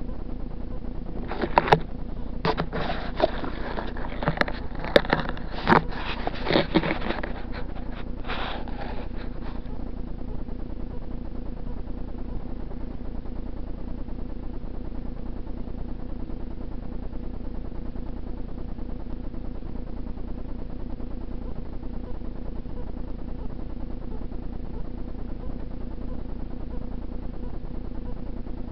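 A small camera being handled and repositioned: a cluster of rustles, clicks and knocks for several seconds, then only a steady low hum.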